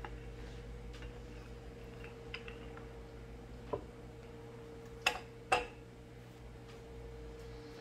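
Wooden rolling pin working rye dough on a wooden butcher block: light, scattered clicks and knocks over a steady low hum, with two sharper knocks about five seconds in, half a second apart.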